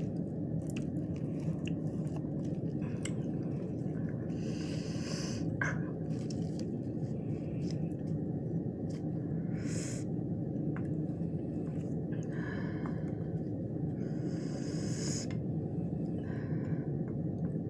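Close-up chewing of crunchy lettuce wraps with raw peppers and cucumber: wet mouth clicks and three short bursts of crunching, over a steady low hum.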